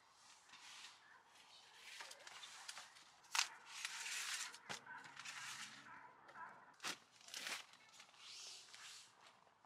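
Rustling of fabric and gear bags, with a few sharp knocks and clicks as camping gear is handled and moved around.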